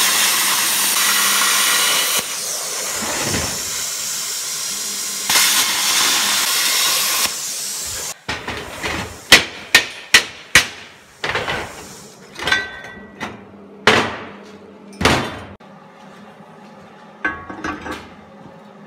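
MIG welding arc running steadily for about eight seconds, an even crackling hiss, as a seam is welded on a sheet-steel box. It stops abruptly, followed by a string of sharp metallic knocks on the steel box, several in quick succession then more spaced out, typical of hammering the fresh weld.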